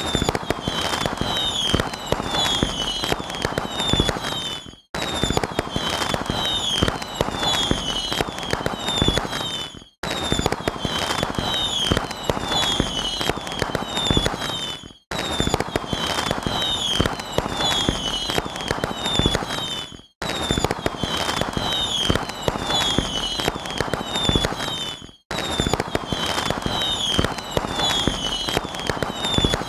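Dense crackling and popping with high chirping whistles above it, like a string of firecrackers. It is a clip about five seconds long, looped six times, each pass ending in a quick fade to silence.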